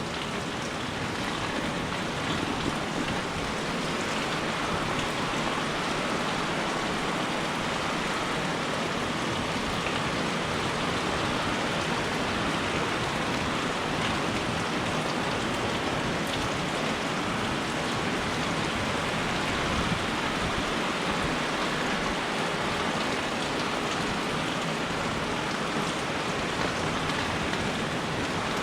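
Steady rain falling, a continuous hiss of many drops on surfaces with faint individual drop ticks.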